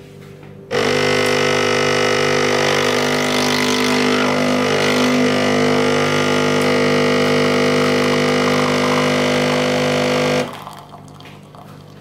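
Morphy Richards Kaffeto espresso machine's pump running with a steady buzzing hum as it pulls a single shot of espresso. It starts suddenly under a second in and cuts off near the end, when the one-cup shot is done.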